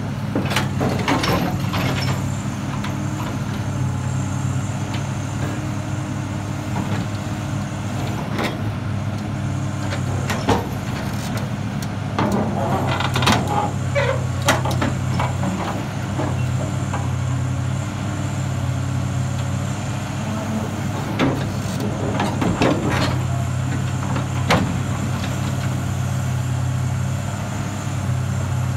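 Excavator diesel engine running steadily under hydraulic load while its Hydremag RM hydraulic scrap shear cuts through the steel members of a truss. Sharp metallic cracks and clanks of steel snapping and shifting come at irregular moments, clustered around the middle and again later.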